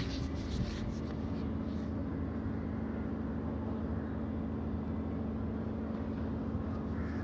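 Steady low mechanical hum with a held droning tone, like a motor or engine running. A few faint clicks in the first couple of seconds.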